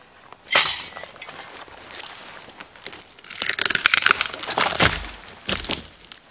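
Dry dead wood cracking and snapping: a sharp crack about half a second in, then a dense crackle of breaking branches and a heavy thud about five seconds in.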